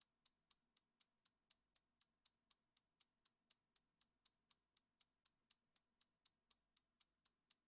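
Clock-ticking sound effect counting down the answer time, with short sharp ticks at a steady pace of about four a second.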